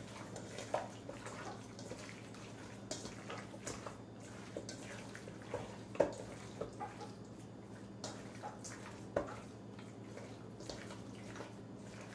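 Raw chicken thighs being squeezed and turned by hand in a wet spice-and-lemon-juice marinade in a stainless steel bowl: soft, irregular squelches and slaps, with a louder squish about 6 s in and another about 9 s in.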